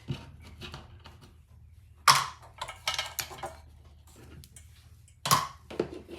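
Small metal engine parts and tools clicking and clinking as an outboard motor is taken apart by hand, with two louder knocks about two seconds and five seconds in.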